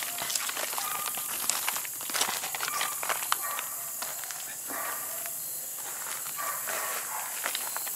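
Footsteps crunching and scraping over loose rocks and gravel of a creek bank, irregular and thinning out in the second half, over a steady high hiss.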